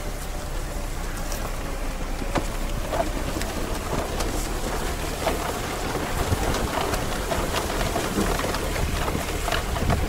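Lada Niva driving slowly through tall dry steppe grass: stalks swishing, crackling and ticking against the body and the side-mounted camera, over a steady low engine rumble and wind.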